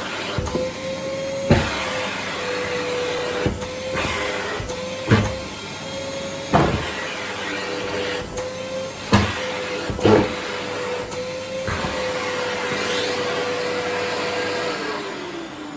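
Vacuum cleaner running with a steady motor whine and a rush of suction, broken by several sharp knocks of the nozzle or tube. About a second before the end it is switched off and the motor winds down, its pitch falling.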